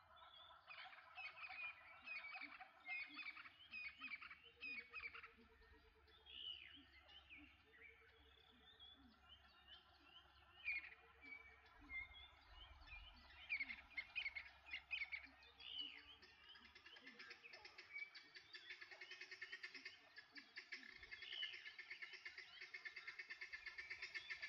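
Faint bush ambience of many wild birds chirping and calling, with a short, low pulsed call repeating every second or two and a fast, even trill growing over the last few seconds.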